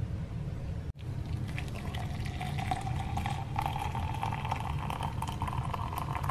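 Liquid being poured into a cup or tumbler, starting about two seconds in, its pitch creeping slowly upward as the vessel fills, over a steady low hum.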